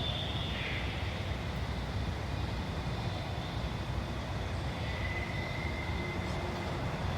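Steady low rumble of outdoor background noise, with faint thin high tones held over it.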